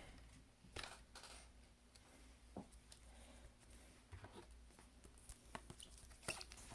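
Faint, scattered light clicks and brief rustles from iPad batteries being handled by hand, with the sharpest click about six seconds in.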